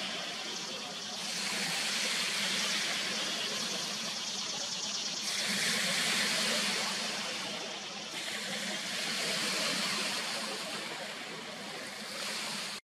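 Lake waves: a steady rushing hiss that shifts in tone about a second in, around five seconds and around eight seconds, and cuts off just before the end.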